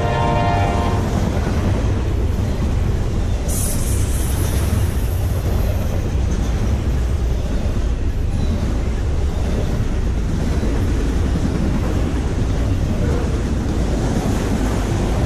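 Norfolk Southern autorack freight cars rolling past at speed: a steady, loud rumble of wheels on rail. The locomotive horn's last chord cuts off about a second in, and a brief high hiss rises over the rumble around four seconds in.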